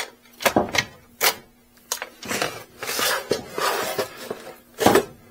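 Key-operated battery lock on an e-bike frame clicking a few times, then the battery pack scraping as it slides out of the frame, with a sharp knock near the end.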